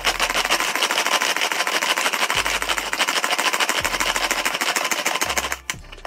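Hand-pulled plastic food chopper spinning its blades through cabbage and onion, a fast, continuous whirring clatter that stops about five and a half seconds in.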